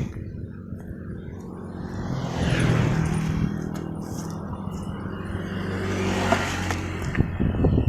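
Motor vehicles on a road: a steady engine hum with a swell of traffic noise about three seconds in and again near six seconds, like vehicles passing, and a few sharp knocks near the end.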